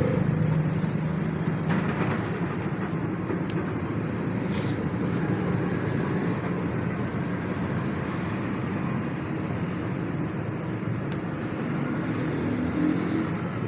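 Steady low background hum and rumble, with a short high beep about a second and a half in and a faint click a few seconds later.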